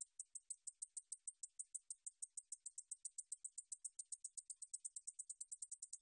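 Ducetia japonica bush katydid (줄베짱이) singing: a series of short, high, dry ticks. They start at about four a second and speed up steadily to around eight a second near the end.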